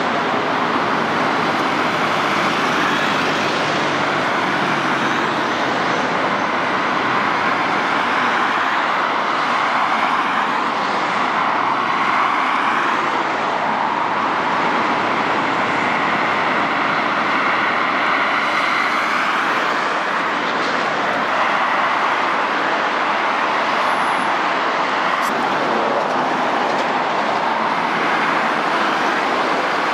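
Steady road traffic noise from a busy multi-lane avenue, a continuous rush of passing cars, while a tram runs toward the microphone along its track.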